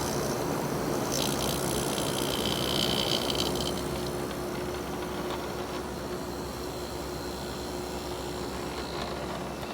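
Matsushita rotary compressor of a 1990 GE (Panasonic-made) window air conditioner running just after start-up, together with the unit's fan, a steady mechanical hum. A high hiss sounds between about one and four seconds in.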